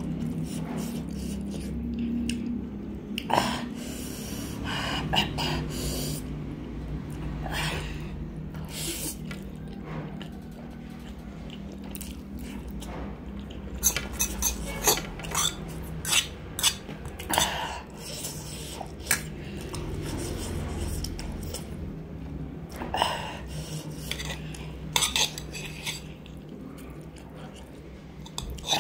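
Metal fork scraping and clinking against a shallow aluminium pan as it twirls and scoops instant noodles, in scattered sharp clicks with a quick run of them about halfway through, along with chewing.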